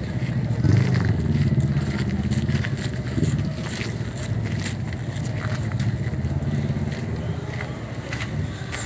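Motorcycle engines running, a low rumble whose pitch rises and falls, with crunching footsteps on gravel.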